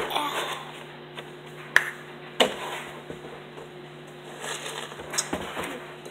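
Milk being poured from a plastic gallon jug into a bowl, with a knock as the jug is picked up and a few sharp clicks as it is handled. Light clicks come near the end.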